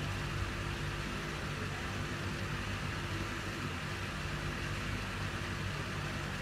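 Small portable speaker wired to an iPhone by a Lightning-to-3.5 mm aux cable, giving out a steady hiss with a low hum while the phone plays a video with no speech.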